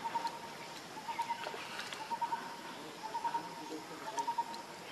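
An animal call of three or four quick notes at one pitch, repeating about once a second. Faint high squeaks and small clicks come over it.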